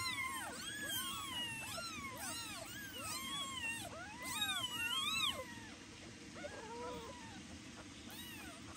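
Newborn kittens meowing loudly, high thin cries that rise and fall, coming quickly one after another and overlapping. They are calling for their mother's attention. After about five seconds the cries thin out to a few quieter ones.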